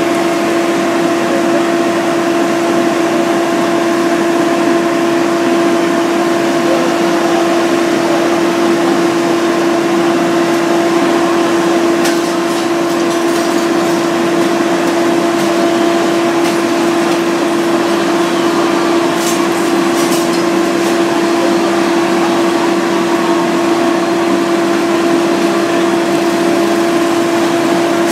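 An engine running steadily, a constant droning tone over a noisy wash, with a few faint clicks and rattles around the middle.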